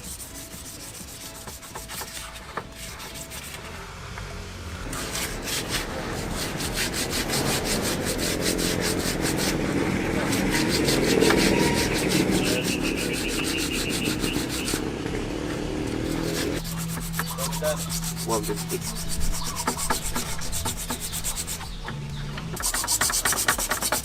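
Sandpaper rubbed by hand over a freshly paint-stripped motorcycle part, in rapid back-and-forth strokes that carry on with short pauses and swell louder through the middle.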